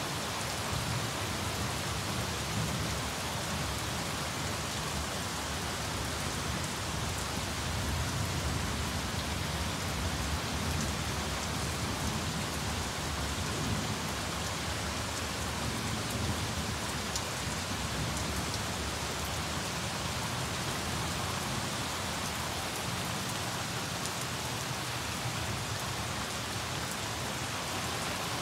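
Heavy rain pouring down steadily on lawn, shrubs and pavement.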